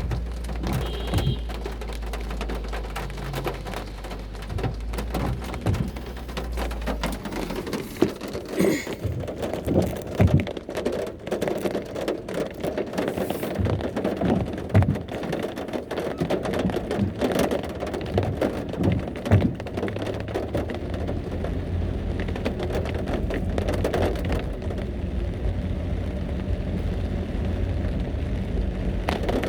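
Heavy rain falling, with many sharp individual drops striking a hard surface, loudest in the middle stretch, over a low steady rumble.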